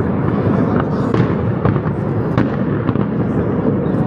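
Aerial firework shells bursting one after another in a dense, continuous barrage of bangs over a low rumble.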